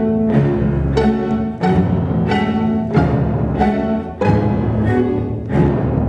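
Solo violin with string orchestra playing, driven by strong accented chords that recur about three times every two seconds.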